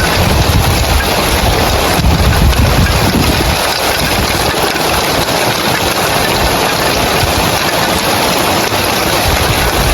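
Heavy rain pelting roof tiles in a dense, steady hiss. A deep rumble underneath is strongest for the first few seconds and eases about three and a half seconds in.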